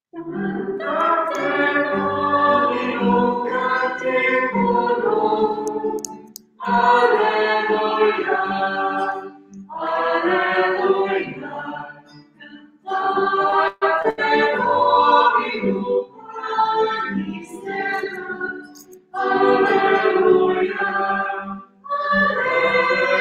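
Choir singing a Taizé chant in short phrases, with brief breaks between them.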